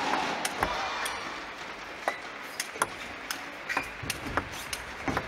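Table tennis rally: the ball clicking sharply off the players' rubber bats and bouncing on the table, about two hits a second.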